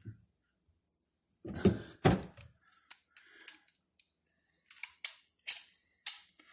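Metal clicks and clunks of a large adjustable wrench being taken off the sink drain's nut and put down, with two heavier thuds about one and a half to two seconds in, then a few lighter clicks every half second or so.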